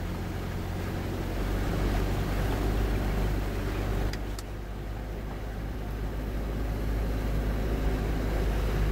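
A vehicle engine running steadily with a low hum, a little louder about two seconds in and again near the end. Two faint clicks about four seconds in.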